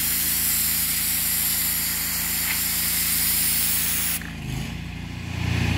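High-pressure water spray from a pressure-washer wand hissing against a concrete driveway over the steady hum of the machine's engine. About four seconds in the spray cuts off, as when the trigger is let go, and only the engine runs on, a little louder near the end.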